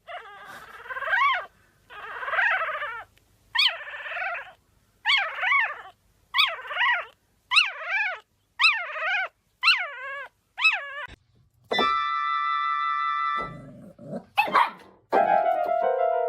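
A dog giving a series of about ten drawn-out, pitched howling whines that rise and fall, the calls getting shorter toward the end. They are followed by a steady electronic tone and then piano music near the end.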